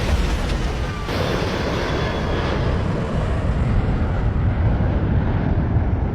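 Airliner jet noise: a loud, deep, continuous rumble with a high rushing hiss that fades away over the first few seconds.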